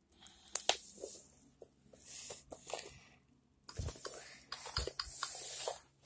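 Rustling and scuffing handling noise with scattered short, sharp clicks and taps, coming in spells with short quiet gaps.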